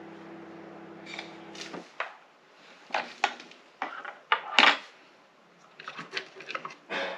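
A steady low hum that stops about two seconds in, followed by irregular clicks, taps and knocks of small hand tools and plastic parts being handled while a Stanley chainsaw is taken apart, the loudest knock just past the middle.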